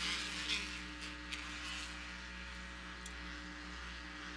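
Off-road race buggies' engines running at speed, fading over the first couple of seconds, with a steady low hum underneath.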